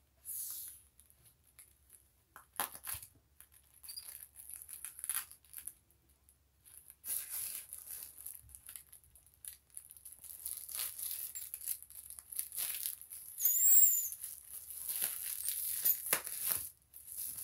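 Plastic bubble wrap crinkling and rustling under hands squeezing a bubble that has a blunt table knife stuck through it, with scattered clicks. The crinkling grows denser about halfway through and peaks with a couple of short high squeaks.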